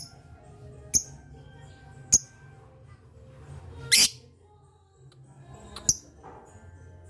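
Lovebird giving short, sharp, shrill chirps every second or two, with one longer, louder call about four seconds in.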